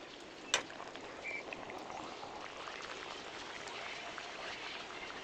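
Food cooking, a steady crackling hiss, with one sharp click about half a second in.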